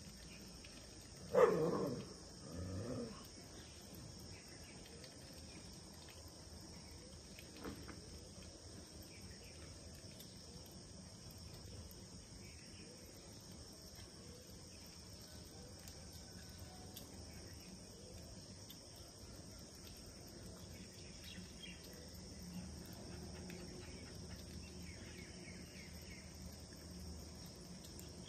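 Faint, steady, high chirring of insects throughout. About a second and a half in there is a short, loud animal call that falls in pitch, and a weaker call follows about a second later.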